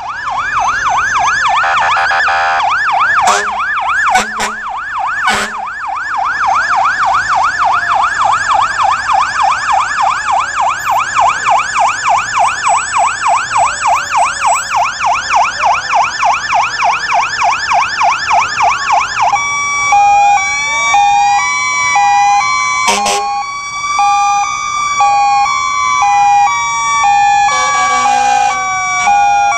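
Fire engine sirens: a fast electronic yelp, switching about two-thirds of the way through to several sirens at once, a high-low alternating tone and slow rising and falling wails. A few short horn blasts cut in, three in the first few seconds and one more later.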